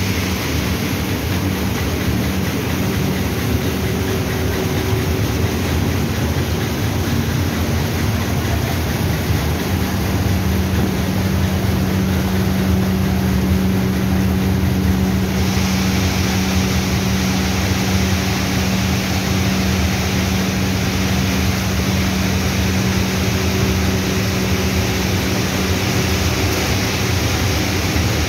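Raisin-processing machinery running: an electric-motor-driven inclined cleated conveyor and cleaning machine, making a steady mechanical drone with a constant hum that grows stronger about a third of the way in.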